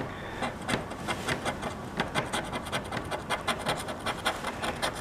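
Scratch-off lottery ticket being scratched with a hand-held scratcher tool: quick, irregular scraping strokes across the coating, several a second.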